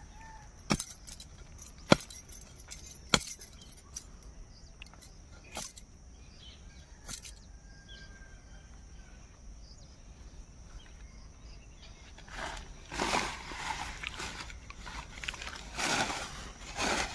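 A digging bar (sabal) striking into soil to dig out a mushroom's deep root: three sharp knocks about a second apart, a couple of weaker ones after, then rustling of leaves and plants near the end.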